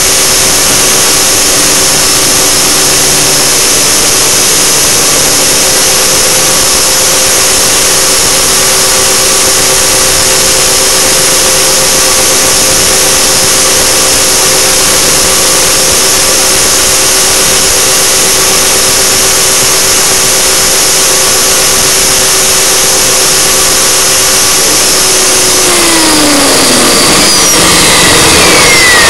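T-Rex 600 RC helicopter heard up close from its onboard camera: a steady, loud high-pitched whine of the motor, gears and rotors in flight. Near the end the pitch falls as the rotor spools down with the helicopter set down in the snow.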